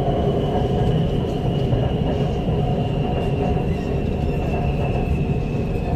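Lahore Orange Line electric metro train running, heard from inside the carriage: a steady rumble of wheels on the track with a thin high whine that falls slowly in pitch.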